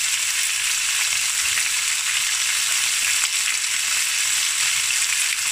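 Freshly added raw diced chicken breast frying in hot olive oil in a stainless steel pan, a steady sizzle.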